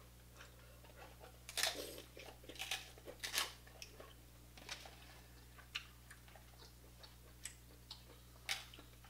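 Irregular sharp clicks and small cracks of crab shells being picked apart by hand, thickest in the first few seconds and sparser later.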